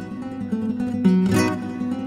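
Solo classical guitar music: plucked melody notes over low bass notes, with a strummed chord about a second in.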